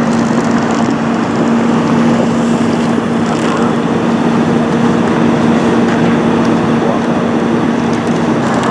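Steady drone of an idling engine with a constant hum, over street noise.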